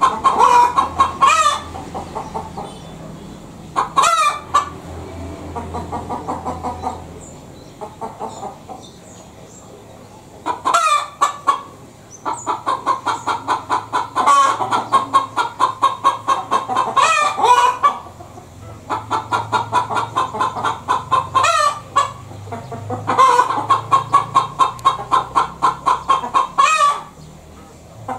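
Domestic hen cackling in bouts: rapid strings of clucks, several a second, each bout broken by longer drawn-out squawks, the 'petok-petok' cackle typical of a hen's egg song. Short lulls fall between the bouts.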